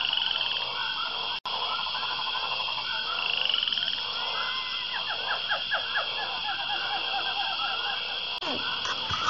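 A chorus of frogs calling: many short croaks and rapid trills overlapping over a steady high-pitched chirring. It cuts out for an instant about a second and a half in, then carries on.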